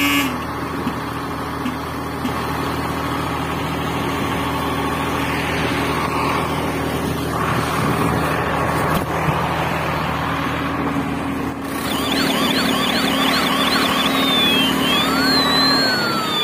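Electronic toy-vehicle sound effects: a steady buzzing engine drone, joined about twelve seconds in by a fast warbling siren and long sweeping whistle-like tones.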